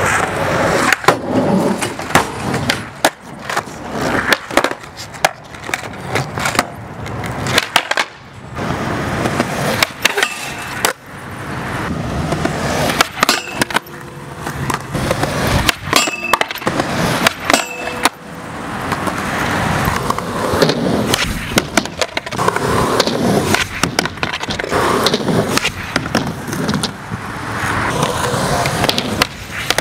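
Skateboard wheels rolling over a concrete skate park, swelling and fading, with many sharp clacks of boards popping and landing on the concrete.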